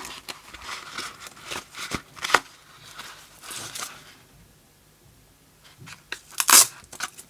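Handling sounds of a large flashlight being worked into its holster: scattered rustles and clicks, a quieter pause midway, then a loud, short rasping scrape near the end.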